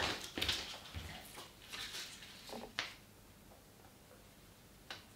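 Handling of a 3M adhesive protective film being laid onto a bike frame's down tube: small crackles, rustles and clicks for about three seconds, one sharper tick, then a last click near the end.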